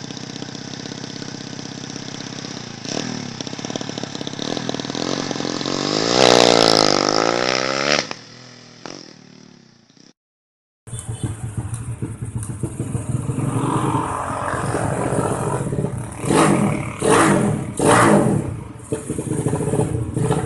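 Drag-racing motorcycle engine running, with a loud rev that rises and falls about six seconds in before the sound dies away. After a short gap it runs again, revved sharply several times near the end.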